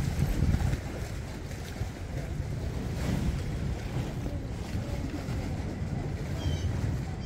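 Gusting wind rumbling on the microphone outdoors, stronger in the first second, with faint high-pitched chirps near the end.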